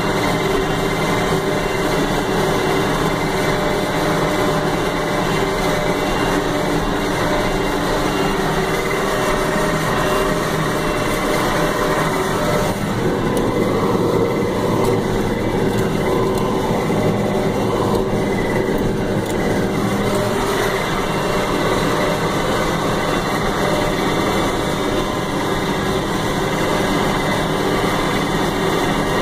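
International Harvester 3788 tractor's diesel engine running steadily under load as the tractor drives across the field, heard from inside the cab. The tone shifts slightly for several seconds midway.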